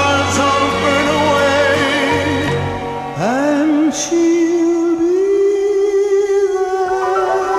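Recorded song with singing over instrumental accompaniment. About three seconds in, the voice swoops up into one long held note that carries to the end.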